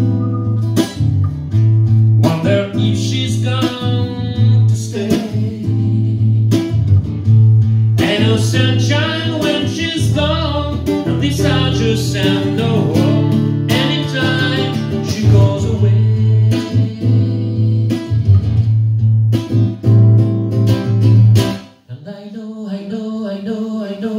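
Classical nylon-string guitar strummed to accompany a man singing into a microphone. The guitar stops near the end while the voice carries on.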